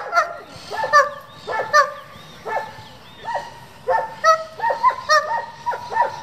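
German Shepherd barking repeatedly in short, high barks, some close together and some spaced apart, as it is worked up on leash against a helper with a bite rag.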